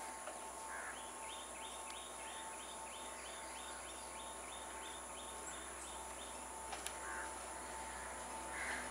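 Quiet rural ambience: crows cawing a few times, with a rapid run of high chirps, about three or four a second, for several seconds in the middle. A faint steady high-pitched hum runs underneath.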